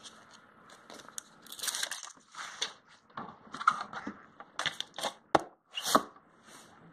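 Thermal-paper photo label being handled and flexed, giving irregular rustling and crinkling with a few sharp crackles, the loudest near the end.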